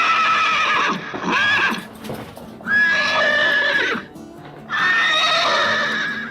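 Horse neighing: a high, drawn-out whinny repeated four times, each call about half a second to a second and a half long, with short gaps between.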